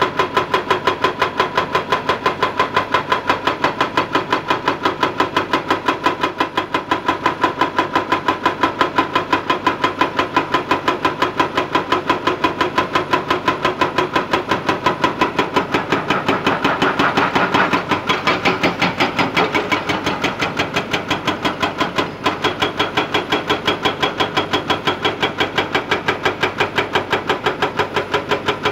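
Hydraulic breaker hammer on a Kobelco excavator pounding rock: a rapid, steady stream of chisel blows, several a second, over the excavator's running engine, with a momentary break about 22 seconds in.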